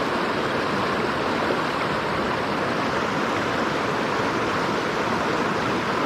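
Mountain stream water rushing and splashing steadily over rocks, an even unbroken noise.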